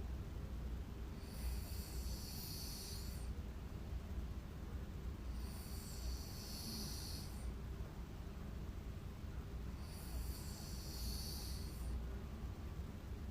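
A sleeping person snoring, with one hissing breath about every four seconds: three full breaths and a fourth starting near the end.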